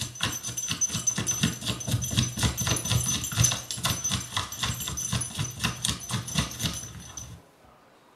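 Recording of dogs barking, played from a CD of animal noises, a dense run of barks that cuts off suddenly near the end.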